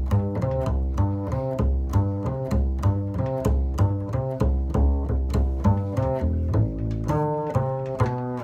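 Upright double bass played pizzicato: an unaccompanied jazz bass line of evenly spaced plucked notes.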